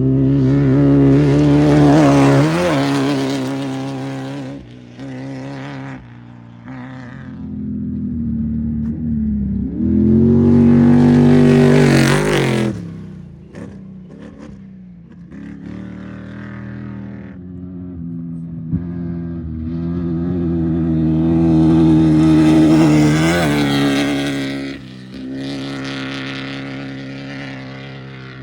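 Off-road race vehicles passing one after another at full throttle: three loud passes, about two, twelve and twenty-three seconds in, the engine note dropping as each goes by, with fainter engine sound between them.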